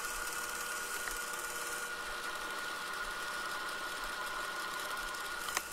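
South Bend 9A workshop lathe running steadily with a thin whine, taking an internal threading pass in the drawtube with a form tool. A single sharp click comes near the end.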